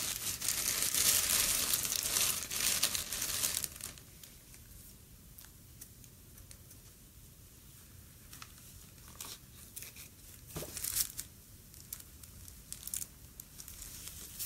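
Thin plastic crinkling and rustling as it is handled, loud and dense for the first four seconds. After that it turns quieter, with scattered short crinkles and ticks.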